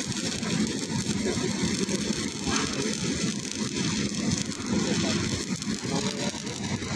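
Stick-welding arc crackling steadily as a 3 mm 6013 rod burns along a joint on galvanized iron pipe.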